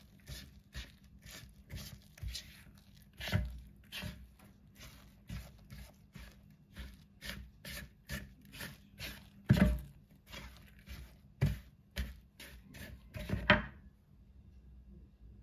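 A spatula stirring and scraping a stiff flour dough in a mixing bowl, in quick repeated strokes about two a second, with a few louder knocks against the bowl. The stirring stops about a second before the end.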